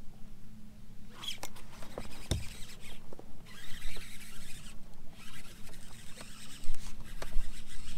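Fishing reel being cranked hard while fighting a hooked bass, a rough whirring that stops briefly twice. A few clicks and one solid knock a little over two seconds in, over a low steady hum.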